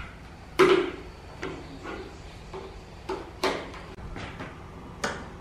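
Handling noise: an irregular series of about eight sharp knocks and clicks, the loudest about half a second in, from a power plug being pushed into a socket and hands on the wooden speaker cabinet.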